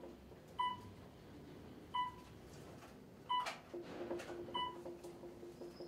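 Elevator beeping: a short electronic beep of one pitch, repeating about every 1.3 seconds, as it signals floors while it travels. A low steady hum starts a little past halfway.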